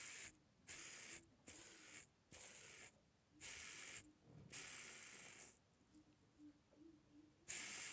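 Fidget spinner flicked again and again by hand: a run of short rushing, whirring bursts, each under about a second, with brief pauses between. The noise comes from larger ball bearings rolling around the inside of its rim, in the owner's view.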